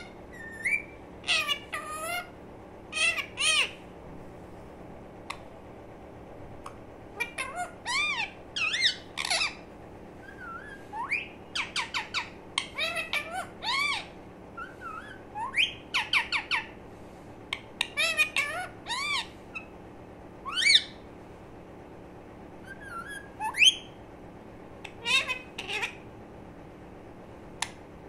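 Young Indian ringneck parakeet squawking and chirping: short, sharp calls that rise and fall in pitch, coming in quick bursts with pauses of a few seconds between them.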